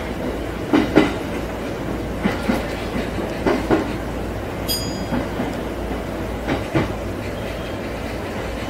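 E231-series electric commuter train heard from its cab, wheels clacking in quick pairs over rail joints a few times over a steady low running rumble. A short high-pitched tone sounds about halfway through.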